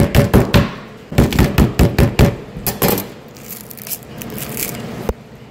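Knife chopping lemongrass stalks on a cutting board in fast strokes, about six a second, in two quick runs over the first two seconds. After that, quieter rustling and rubbing as the cut stalks are handled, with one sharp click near the end.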